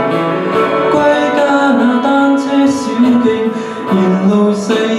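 A pop ballad sung by a man into a handheld microphone over an instrumental backing track. His voice holds long notes that step up and down.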